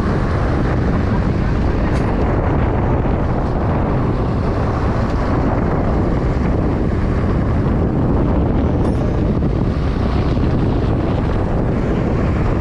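Boat engine running steadily just after being repaired and restarted, with wind buffeting the microphone.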